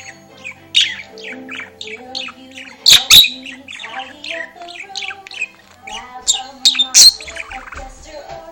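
Budgerigar chattering: a rapid run of short chirps and warbles, with a few sharp, loud chirps about three seconds in and again near seven seconds.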